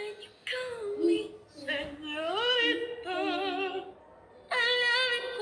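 A female voice singing from a TikTok clip played through a phone's speaker: several phrases with long, wavering held notes and a short break about four seconds in.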